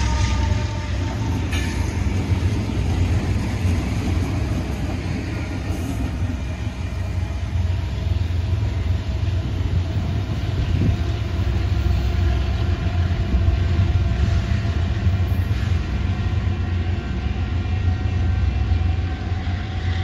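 Multi-unit Union Pacific diesel freight locomotive consist rumbling past and pulling away, a steady low engine rumble. The tail of a train horn blast cuts off just after the start.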